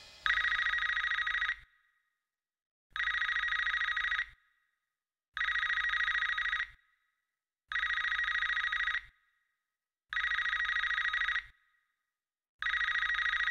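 Telephone ringing: six evenly spaced rings, each about a second and a half long, with about a second of silence between them.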